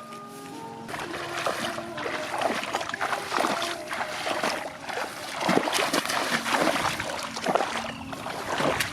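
Water splashing and sloshing in irregular bursts, with faint music underneath.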